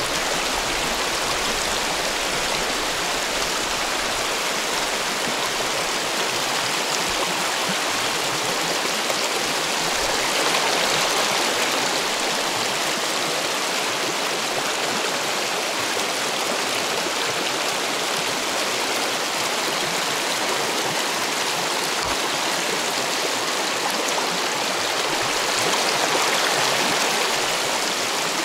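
Mountain river flowing: a steady rush of running water, swelling a little about ten seconds in and again near the end.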